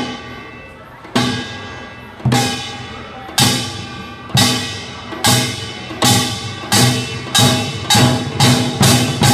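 Korean traditional percussion ensemble (kkwaenggwari small gong, janggu hourglass drum and buk barrel drums) striking together in unison, each stroke left to ring out. The strokes speed up steadily, from about one a second to two or three a second.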